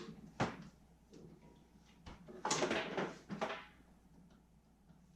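Handling noises: two sharp clicks near the start, then a short scraping rattle about halfway through.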